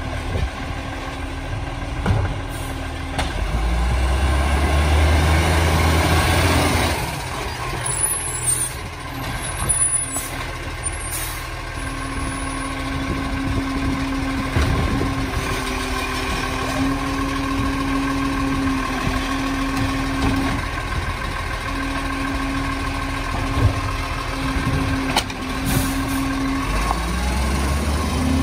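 Side-loader garbage truck's diesel engine running and revving up while its automated arm lifts and empties a wheelie bin. A burst of air hiss comes about six to seven seconds in, and a held low whine comes and goes through the second half.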